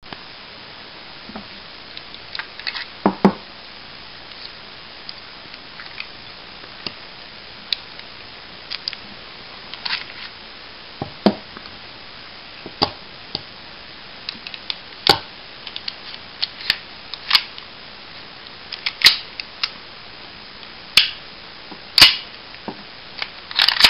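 HFC M9 gas blowback airsoft pistol making a series of sharp metal clacks and snaps at irregular intervals, sparse at first and coming thicker and louder in the second half.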